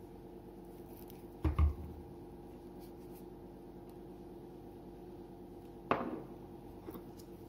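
Condiment bottle and jar set down on a countertop: a double thud about one and a half seconds in, a sharper knock near six seconds, then a light tap, over a steady low hum.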